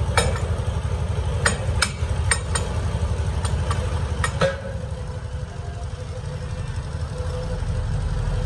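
Sharp metal clicks and knocks of a chuck key being worked on a four-jaw lathe chuck, about nine strikes in the first half, over a steady low machine drone. After about four and a half seconds the knocks stop and only the drone continues.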